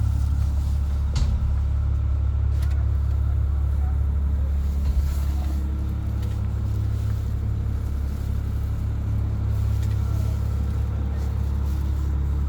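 Hyundai Robex 500 excavator's diesel engine running steadily, a deep even hum with no change in speed, with a few faint clicks.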